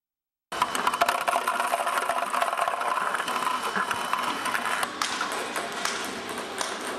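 Table tennis ball robot running, starting abruptly about half a second in: a steady mechanical whir with a dense clatter of ping-pong balls clicking and bouncing.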